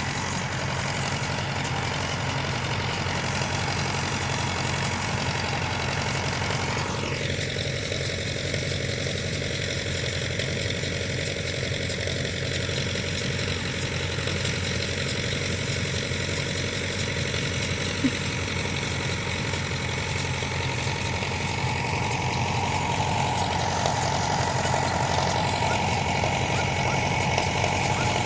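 Tractor engine running steadily during hay baling.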